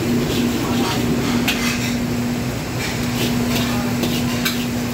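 Metal wok spatula clacking and scraping against a wok as egg fried rice is stir-fried, about eight irregular clanks. They sit over a steady kitchen hum with a constant low tone.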